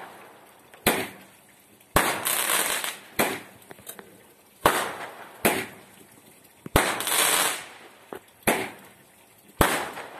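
Fireworks going off: about eight sharp bangs spaced roughly a second apart, several followed by a hissing crackle lasting about half a second to a second.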